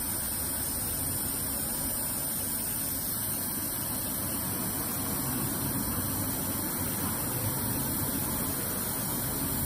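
Steady spraying hiss of an engine oil-line flush being forced in through the oil filler opening of a Saab 9-5's V6 turbo engine, with no change in pace or level.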